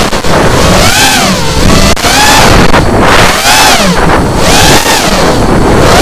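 Brushless motors of a small FPV racing quadcopter (ZMX 2205 2633kv) whining, the pitch swooping up and down about once a second with the throttle, with wind rushing over the onboard microphone.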